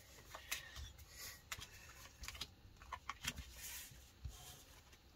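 A stack of Pokémon trading cards being handled: cards slid against each other and set down on a playmat, a string of faint, irregular clicks and rustles.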